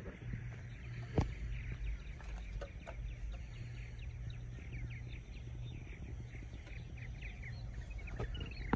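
Birds chirping: a run of short, quick, falling chirps, over a steady low rumble. One sharp knock about a second in.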